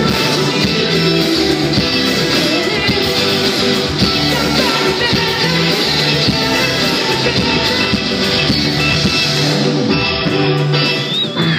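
Live band playing a rock-pop song at a sound check, with guitar and a singing voice. Around ten seconds in the music thins out toward just the guitar.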